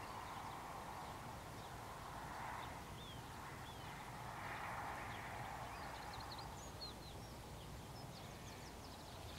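Faint rural ambience: small birds chirping, with short high chirps scattered through and coming thicker in the second half, over a steady, faint rushing noise that swells and eases.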